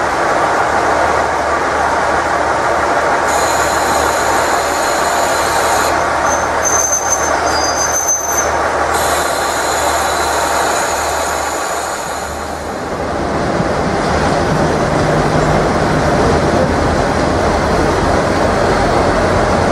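KiHa 40-series diesel railcars running slowly into a station platform, with a high-pitched squeal for several seconds as they slow. After the squeal stops, the diesel engine keeps running as the train draws up.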